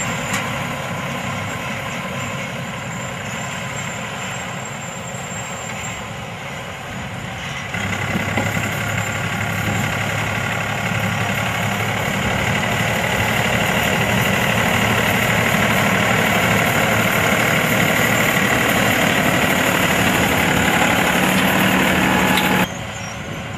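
Farm tractor's diesel engine running steadily under load as it pulls a multi-row seed planter across a ploughed field. The sound gets louder abruptly about eight seconds in and drops suddenly just before the end.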